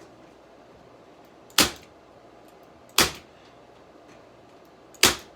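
Electric staple gun firing three times, driving staples through 1/4 inch hardware cloth into a rack frame: three sharp snaps, the second about a second and a half after the first and the third about two seconds later.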